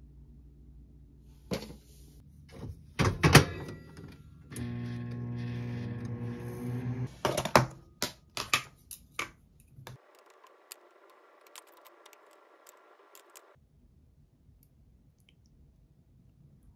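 Knocks and clinks of kitchenware being handled: a pot lid and a plastic food container with its snap lid. The loudest knocks come a few seconds in and again in the middle, with a steady pitched hum for about two seconds between them.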